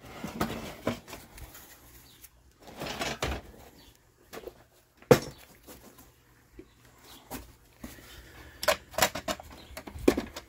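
Handling noise from a cordless string trimmer: scattered clicks, knocks and rustles, with one sharp knock about five seconds in and a quick run of clicks near the end. No motor is running.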